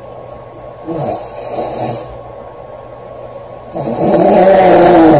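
A young woman snoring loudly in her sleep: a softer breath about a second in, then one long, loud snore that starts near the four-second mark.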